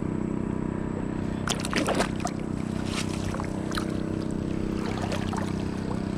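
A small boat's engine running steadily at a constant pitch, with a cluster of sharp clicks about a second and a half in and a few more later.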